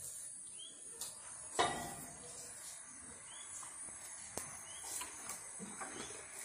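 Steady high insect buzz with short rising bird chirps scattered through it. A sharp knock sounds about a second and a half in, with a few lighter clicks later.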